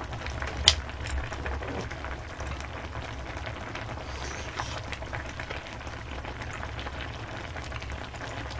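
Pot of budae jjigae simmering, a steady crackling bubble, with one sharp click a little under a second in and a few lighter clicks.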